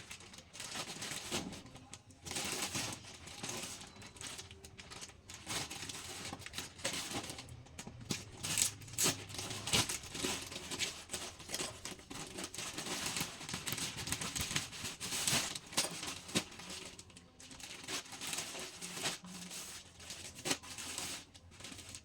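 A parcel being unboxed: packaging crinkling and tearing in quick, irregular crackles as it is handled and pulled open.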